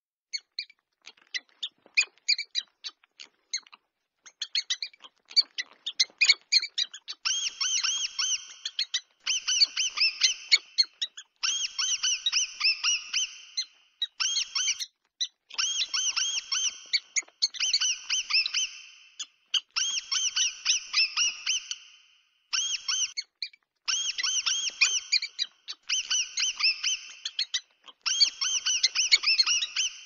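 Mouse squeaking sound effect: high, rapid squeaks. The first few seconds are quick scattered chirps; from about seven seconds in they come as runs of fast squeaks, each a second or two long, with short pauses between them.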